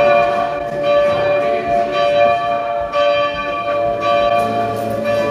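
Church bells ringing, several notes struck about once a second, each ringing on into the next.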